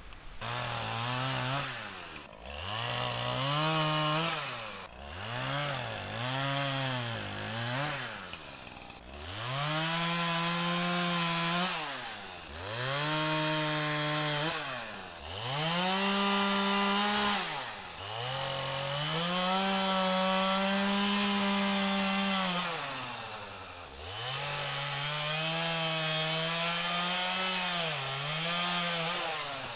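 Chainsaw throttled up and down in repeated cuts, about nine times. Each time its pitch climbs to full speed, holds, and drops back toward idle, with the longest held runs near the middle as it cuts through downed trees.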